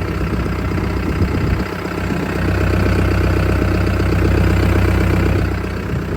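Cat 420E backhoe loader's diesel engine idling with a steady, even firing rhythm, louder for about three seconds in the middle. The engine runs cleanly, with no blow-by.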